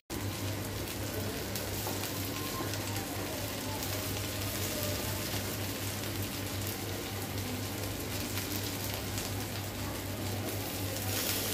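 Two koi fish (climbing perch) shallow-frying in mustard oil over low heat, sizzling with a steady crackling hiss.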